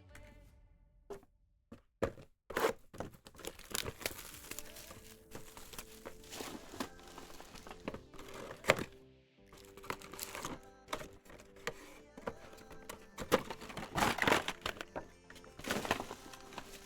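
Trading card pack wrappers crinkling and tearing and cards being handled, a run of irregular crackles and clicks, over quiet background music.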